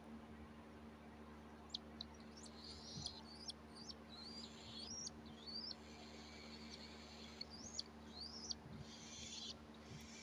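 Pet cockatiel chirping: a series of short, high, rising chirps with a few sharp clicks between them, over a faint steady hum.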